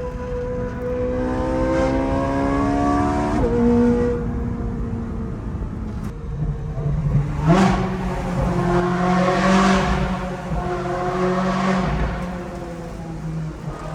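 Sports car engine revving hard, its pitch climbing for about three seconds and dropping sharply at a quick upshift, then pulling again with a rushing hiss over the engine note.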